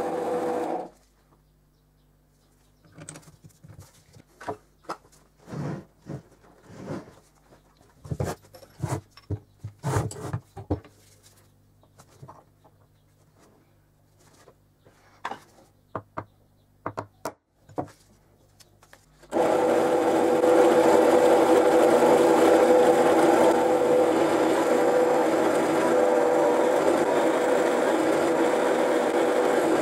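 Bench drill press motor running while drilling into metal, cutting off suddenly about a second in. Then a long stretch of scattered light clicks and knocks as small metal parts are handled on a bench. A little past the middle the drill press starts again and runs steadily while boring a metal part.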